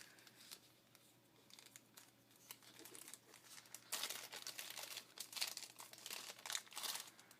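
Packaging crinkling in quick, irregular bursts as craft-kit pieces are rummaged through and handled. The sound is louder over the last three seconds, after a few faint light taps.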